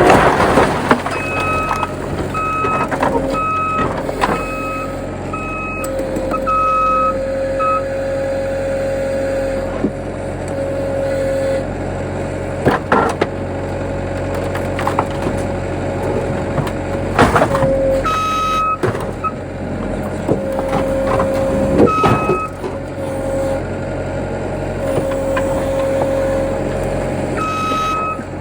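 A heavy machine's engine running steadily while its backup alarm beeps in spells as it reverses. There are a few sharp knocks, the loudest near the start and about two-thirds through.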